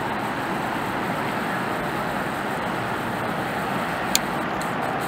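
Steady outdoor background roar with no distinct engine tone, and a single sharp click about four seconds in.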